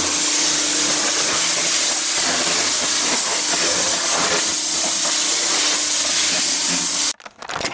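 Pressure washer spraying a high-pressure water jet onto a mower deck: a loud, steady hiss with a faint low hum underneath. It cuts off suddenly near the end.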